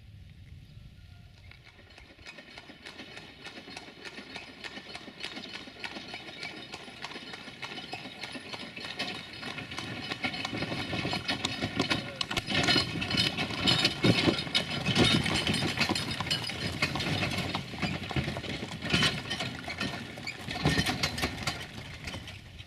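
Horses pulling wooden carts, their hooves clip-clopping on concrete with the carts rattling along. The sound builds as they approach, is loudest about halfway through, and fades near the end.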